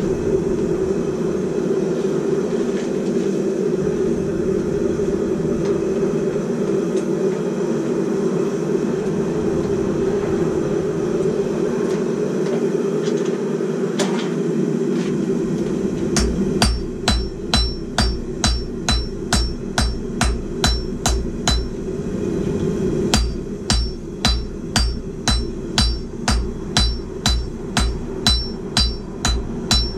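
Hand hammer striking hot steel on an anvil, about two ringing blows a second, in two runs that start a little past halfway, with a short pause between them. Beneath it, and alone for the first half, the steady rush of the propane forge burner running.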